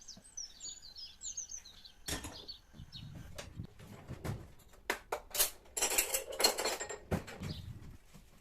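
Clinking and clattering of kitchen dishes and utensils in irregular bursts, densest in the last few seconds. A small bird chirps in quick runs during the first two seconds.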